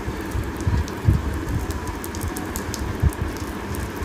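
Curry gravy simmering in a pan on the stove: a steady crackling, bubbling hiss, with a couple of dull knocks about a second in and near the end.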